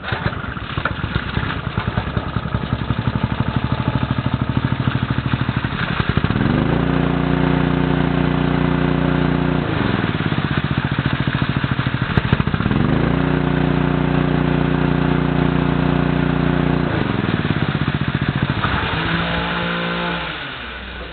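Koshin KH-50G petrol engine water pump starting and running, its engine speed rising twice to a higher steady pitch for a few seconds and falling back each time, with water gushing from the outlet. Near the end the engine slows and dies away.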